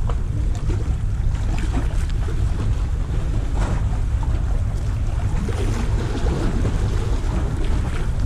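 Steady wind rumbling on the microphone over the wash of waves against a tetrapod breakwater, with a few faint ticks.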